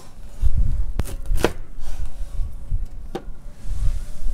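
A knife chopping on a cutting board: a few separate sharp strikes, one about a second in, another half a second later, and one more past three seconds.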